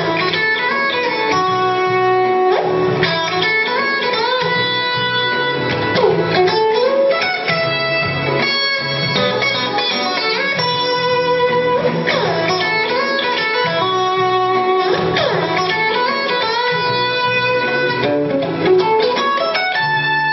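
Stratocaster-style electric guitar playing an instrumental melody with many sliding and bent notes, over a repeating low part.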